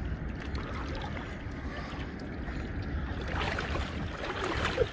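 Outdoor wind rumbling on the microphone as a steady low noise, with a few faint brief sounds toward the end.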